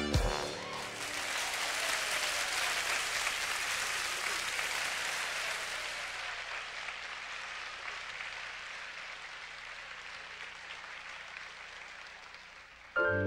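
Theatre audience applauding after a band's song ends, the applause slowly dying away; piano music cuts in right at the end.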